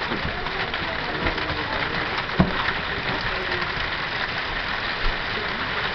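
Steady rain falling on trees and a porch, with a low rumble underneath. One sharp tap about two and a half seconds in.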